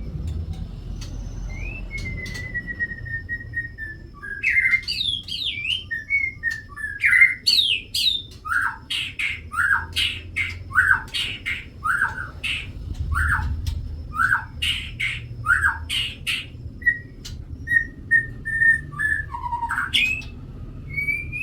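A bird calling: a long thin whistle, then a run of loud, sharp calls that slide downward, a little more than one a second, and a few whistled notes near the end.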